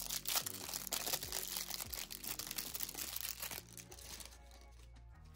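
Packaging crinkling and rustling as small solid pudding gel pots are unwrapped, stopping a little before four seconds in. Soft background music runs underneath.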